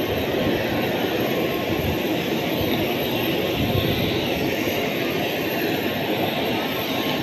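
The small hard wheels of a child's rolling suitcase rattling steadily over a grooved concrete apron.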